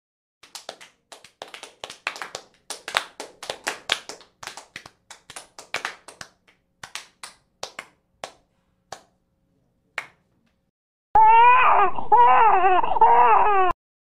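Scattered hand claps that thin out and stop, then a loud wailing cry, wavering up and down in pitch, lasting about two and a half seconds and cutting off abruptly.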